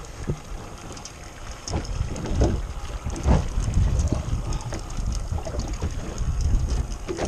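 Wind buffeting the microphone on an open boat at sea, a gusty low rumble, with scattered light ticks and knocks.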